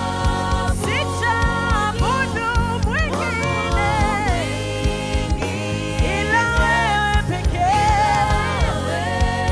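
Gospel music: a voice singing a melody over a steady band accompaniment with bass.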